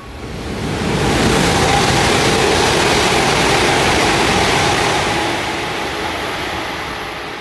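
JR East E5 series Shinkansen passing through the station at speed without stopping. Its rushing rolling noise swells within about a second, holds for a few seconds, then fades as the train moves away.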